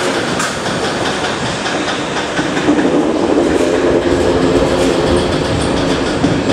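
Intercity 2 double-deck coaches rolling past, the wheels clicking irregularly over rail joints under a steady rumble. A low hum comes in about two and a half seconds in and fades around five seconds.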